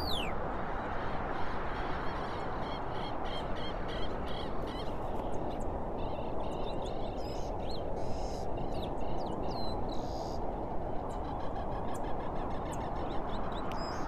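Outdoor nature ambience: a steady rushing noise with birds calling over it, a run of short repeated chirps in the first half and scattered higher calls later.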